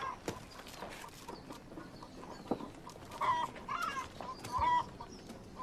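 Chickens clucking: a series of short clucks, most of them bunched between about three and five seconds in.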